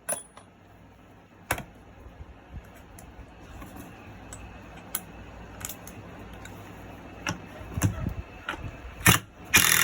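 Scattered clicks and knocks of power tools and bolts being handled, with a louder clatter near the end.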